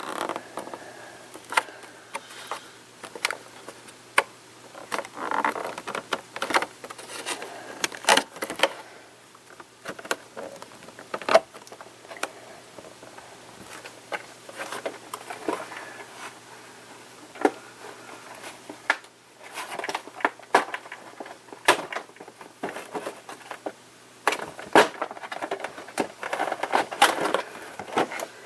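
Toy packaging being opened and handled by hand: scattered crinkles, clicks and taps of cardboard and plastic.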